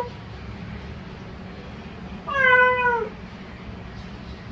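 A tortoiseshell cat gives one drawn-out meow a little over two seconds in, its pitch sagging at the end, as it calls at a closed door for its owner.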